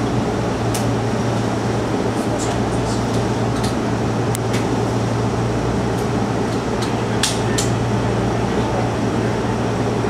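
Steady hum and fan-like whir of a stationary electric train's onboard equipment, heard inside the driver's cab, with a few faint light ticks.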